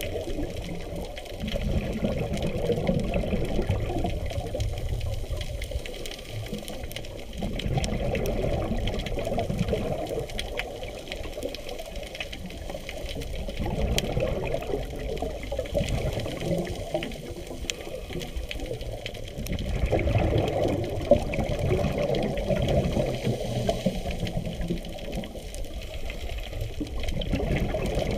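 Scuba diver's breathing heard underwater through a camera housing, muffled: bubbling exhalations from the regulator that swell and fade about every five to six seconds.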